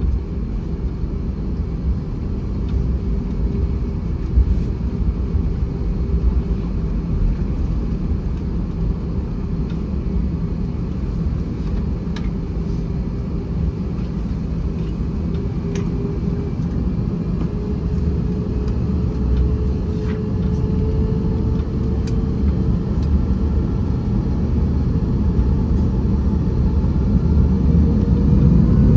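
Steady low rumble heard from inside the cabin of an Airbus A321-231 on the ground, its IAE V2500 engines running, with a faint held engine tone and a few small clicks. Near the end the engine tone rises in pitch and the rumble grows louder as thrust builds.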